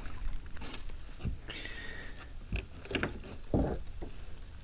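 A few separate knocks and bumps on a paddleboard, about four over the span of a few seconds, over light background noise.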